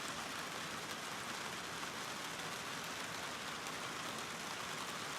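Steady rain falling, an even hiss at a low level after the song's music has stopped.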